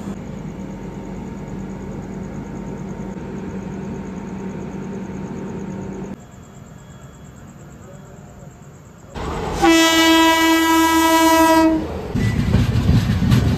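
Indian Railways express train: a steady rolling hum with a low drone, then quieter station ambience. About ten seconds in comes one long, steady train-horn blast of about two seconds, the loudest sound. The loud low rumble of the train running follows.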